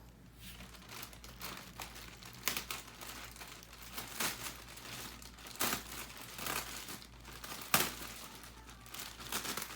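Plastic packaging being crinkled and pulled open by hand to unwrap a leather handbag: irregular rustling and crackling, with one sharp crackle about three-quarters of the way through.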